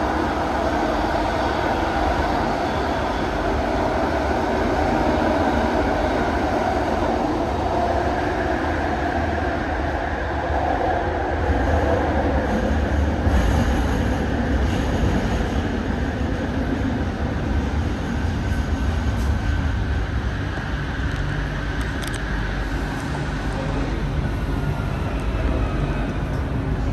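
ART200 metro car of a linear-induction-motor train running along the track, heard from inside the car, with loud wheel noise over a steady low rumble. Pitched tones in the wheel and motor sound shift slowly as it runs.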